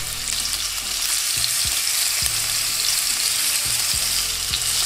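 Lamb chops frying fat-side down in hot oil in a nonstick pan, the fat rendering: a steady, even sizzle.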